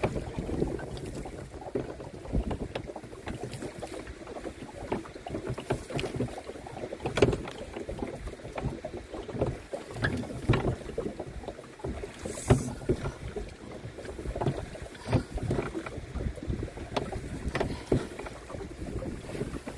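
Canoe paddling: paddle strokes in the water give sharp splashes about once every second or two, over a low wind rumble on the microphone.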